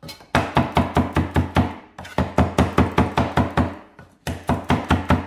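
Chef's knife chopping continental parsley on a thick wooden chopping block: quick, even knocks, about five or six a second, with a short pause about four seconds in before the chopping starts again.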